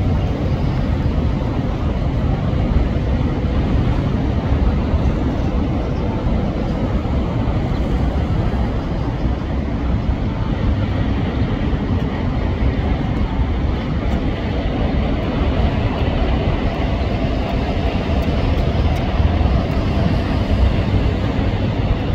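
Steady low rumble of background noise, like distant traffic or engines, with a faint steady hum through it; no duck calls stand out.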